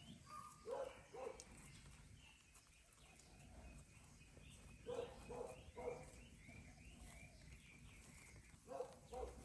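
Faint short animal calls, a few in quick succession near the start, around the middle and again near the end, over faint bird chirping.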